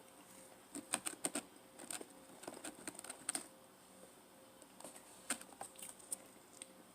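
Close-up eating sounds of someone chewing pizza: runs of short, crisp clicks and crackles in small clusters, with quiet gaps between them.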